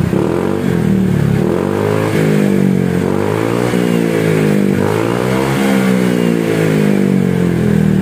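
Honda PCX 160's single-cylinder engine running through a freshly fitted SKR aftermarket exhaust, revved twice. The note climbs and falls, climbs again and settles back. The sound is solid, with no popping.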